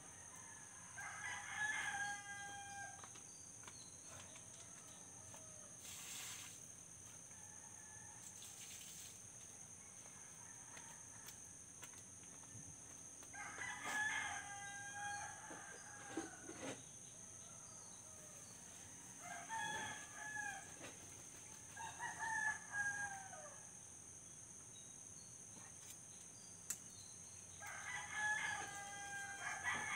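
Roosters crowing, five faint crows spread out, each one to two seconds long.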